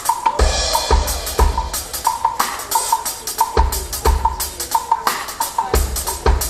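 Drum kit playing a steady groove of bass drum and snare hits, with a cymbal crash about half a second in, over a repeating mid-pitched note from the band.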